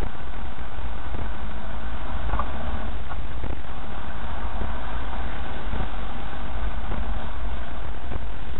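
Vehicle driving along a muddy, rutted dirt track, heard from inside the cab: a steady low rumble of engine and tyres, with scattered short knocks and rattles as it goes over the bumps.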